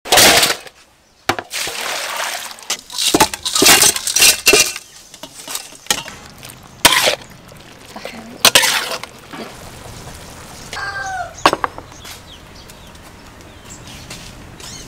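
Kitchen food-prep noises in metal bowls and pans: loud splashing and clattering as food is poured and tipped in over the first six seconds, then quieter with a few sharp clinks.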